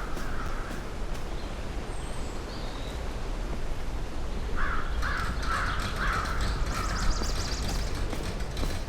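Bird calls: one call at the start, then a run of about five harsh calls a little past halfway, over a steady outdoor rumble and hiss. A fast, high chirring starts near the end.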